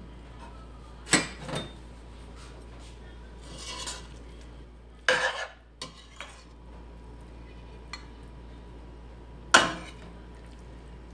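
Serving spoon scraping and knocking against a stainless steel cooking pot while food is dished out onto a plate: a few sharp clinks, a short scrape, a clatter about halfway through and a loud clank near the end.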